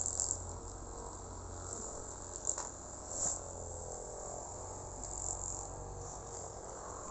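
Steady high-pitched insect chirring, like crickets, over a low steady hum, with two brief faint rustles a few seconds in.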